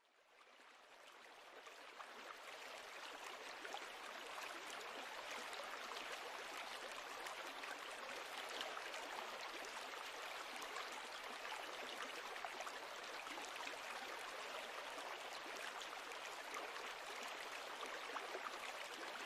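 Faint, steady rush of river water spilling over a low weir, fading in over the first couple of seconds.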